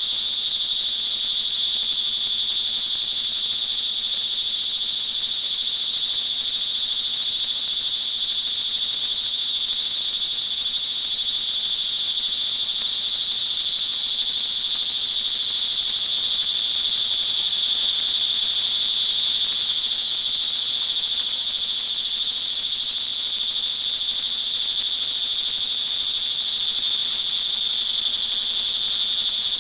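Dense chorus of crickets trilling without a break: a steady, high-pitched shrill.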